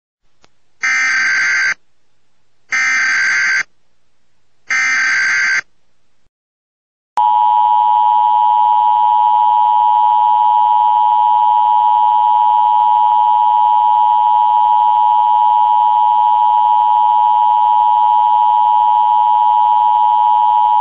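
Emergency Alert System SAME header: three short bursts of digital data tones about two seconds apart. About a second and a half later comes the EAS attention signal, a steady two-tone alert held for about fourteen seconds, which cuts off suddenly.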